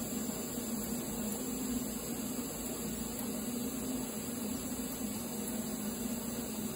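TIG welding arc burning steadily on a round tube: an even hiss with a low buzz beneath it.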